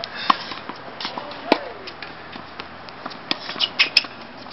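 Tennis racket strings striking a ball: a serve's sharp hit about a quarter second in, then another hit about a second later, with a further sharp click near the end.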